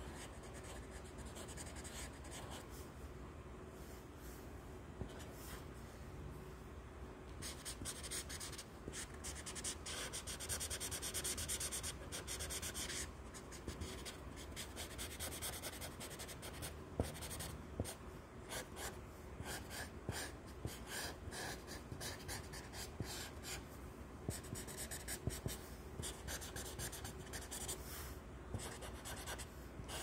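Sharpie felt-tip marker scratching across lined notebook paper in a string of short strokes, with a dense stretch of rapid back-and-forth strokes about a third of the way in.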